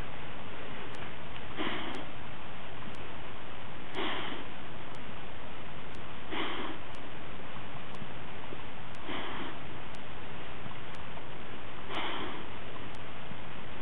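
Lurcher breathing heavily, with five hard sniffs about every two and a half seconds over a steady hiss.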